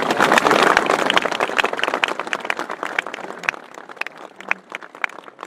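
Crowd applauding, dense at first, then thinning over a few seconds into scattered single claps that die away.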